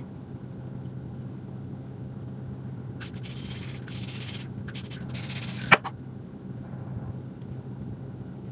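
Aerosol spray can hissing in two bursts, the first about a second and a half long and the second shorter, as it is sprayed along the lace front of a wig being installed. A sharp click follows right after the second burst.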